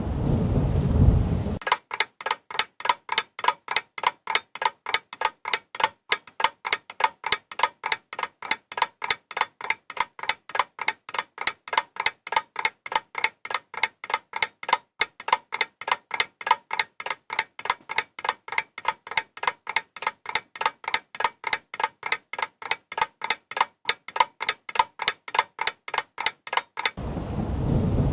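Steady, regular ticking at about four ticks a second, after a brief rushing noise at the start; the rushing noise comes back near the end.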